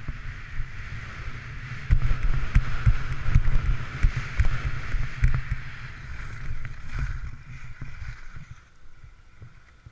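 Skis hissing and scraping over packed snow during a downhill run, with wind rumbling and knocking on the microphone. Both die down near the end as the skier slows to a stop.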